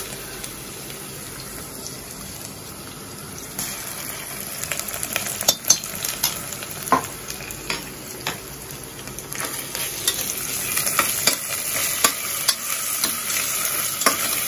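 Sliced onions sizzling in hot oil in a stainless steel pressure cooker, with a spoon clicking and scraping against the pan as they are stirred. The sizzle grows louder in the second half as ginger-garlic paste goes into the pan.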